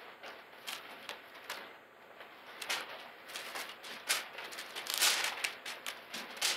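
Thin Bible pages being leafed through and rustled, a run of soft papery crackles that grows loudest about five seconds in.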